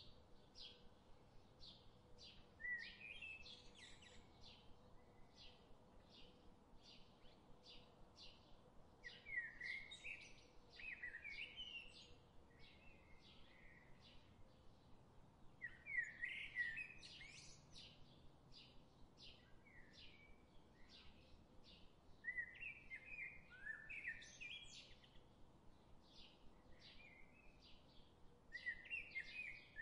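Faint birdsong: steady repeated chirps, about two a second, with a louder warbled song phrase breaking in every five to seven seconds.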